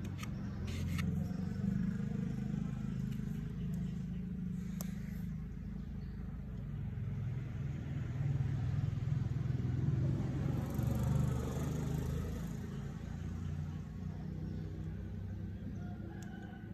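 Steady low rumble of a vehicle engine. A few light plastic clicks in the first five seconds come from the angle-grinder housing being handled, and a rooster crows about ten seconds in.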